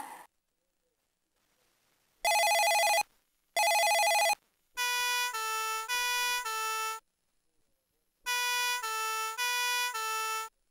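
Electronic sound effects from a Fireman Sam Jupiter toy fire engine: two short bursts of a fast-warbling electronic bell, then two runs of a two-tone hi-lo siren, four notes each, with silent gaps between.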